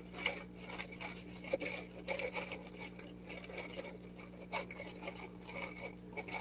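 Plastic and foil kit bags crinkling and rustling as they are handled, in many short, irregular crackles.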